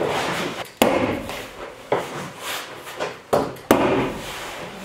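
Four sharp strikes of a hand tool fastening tar paper to a wooden wall, two of them close together near the end, with rustling of the paper in between.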